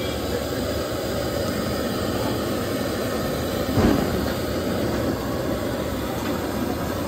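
Commercial gas burner running at full flame under a steel frying pan of cooking omelette, a steady roar, with a single knock about four seconds in.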